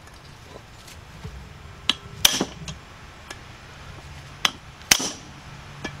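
Hammer striking a 15 mm deep socket and extension set on a valve spring retainer of a 3.3 V6 cylinder head: about five sharp, ringing metal blows, the two hardest about two seconds and five seconds in. Each blow shocks the retainer down to knock the valve keepers loose so the valve can be removed.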